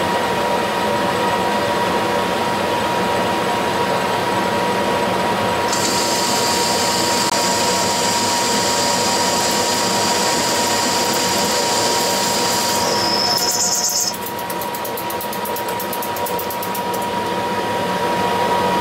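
Metal lathe running with a steady whine while a lathe tool takes a heavy roughing cut on a metal disc, 100 thousandths a pass. A high-pitched cutting hiss joins in about six seconds in and stops about fourteen seconds in, after which the machine is a little quieter.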